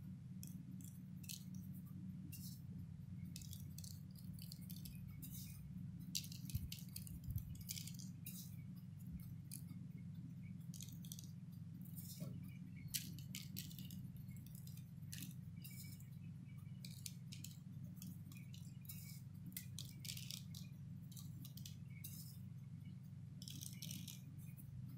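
Sesame seeds sprinkled by hand onto egg-washed dough rolls on a paper-lined baking tray, making faint, irregular light ticks, over a steady low hum.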